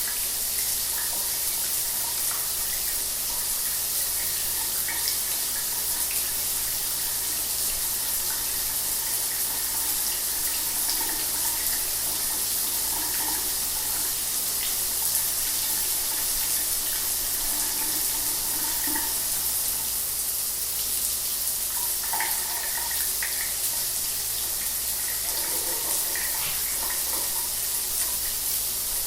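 Shower water running steadily, an even hiss of spray with small splashes flickering through it.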